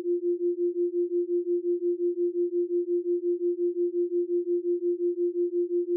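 A single pure electronic tone at a low-middle pitch, pulsing evenly about four times a second without pause. It is a brainwave-entrainment tone of the kind used in binaural-beat and isochronic-tone audio.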